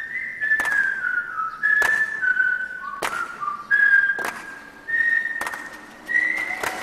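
A whistled tune of held notes stepping up and down, over a sharp percussive hit about every 1.2 seconds, six in all.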